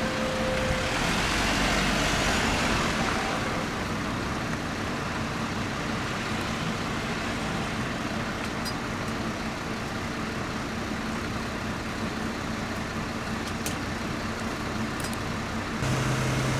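Motor vehicle engine running under steady road and traffic noise, with a hiss that swells and fades over the first few seconds. About a second before the end the sound changes suddenly to a louder, steady low hum.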